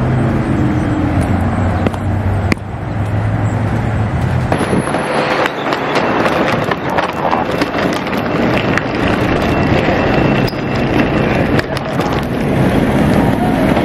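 Footsteps in boots and a wheeled suitcase rolling over pavement and tile, with many sharp clicks and knocks from the wheels and steps. A steady noise of street traffic runs underneath, with a low hum during the first few seconds.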